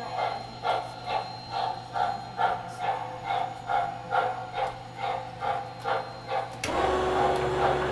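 Model railroad turntable rotating with a steam locomotive on its bridge, a rhythmic hissing pulse about twice a second over a low hum. Near the end a louder, steady motor drone cuts in as the turntable bridge starts to drop into its pit.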